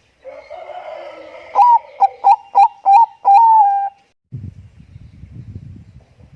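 Zebra dove (Bangkok perkutut) cooing: a soft opening phrase, then a run of about five short, clipped notes and a final longer held coo. Its song stops about four seconds in, followed by a low rumbling noise.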